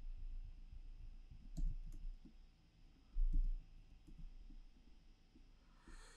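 Scattered, irregular clicks of a computer keyboard and mouse as a long string of hex zeros is entered and selected. There is a louder dull low thump a little over three seconds in.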